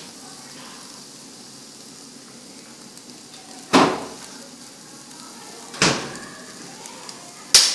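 Pork ribs sizzling on an electric tabletop grill, a steady hiss, broken by three sharp knocks about two seconds apart.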